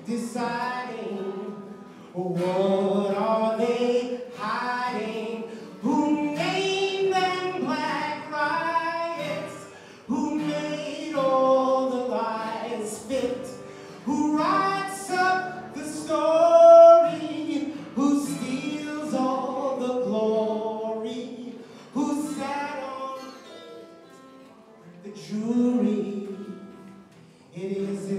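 A man singing a song while strumming an acoustic guitar, in sung phrases of a few seconds each with short breaks between them.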